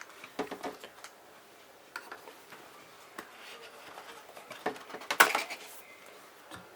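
Drone accessories and their packaging being handled: scattered light clicks and taps, with a louder rustling scrape about five seconds in.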